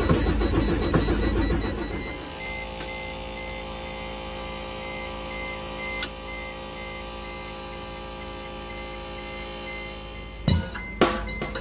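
Background music: sustained held chords, with drum hits coming in near the end. A louder, rough sound fills the first two seconds before the music is left on its own.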